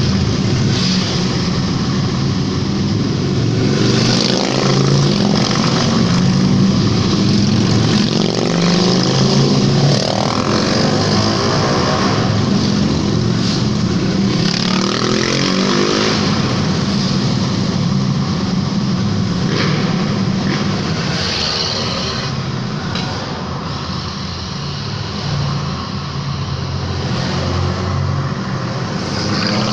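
A long convoy of motorcycles riding past one after another, their engines blending into a continuous loud rumble that echoes inside a road tunnel.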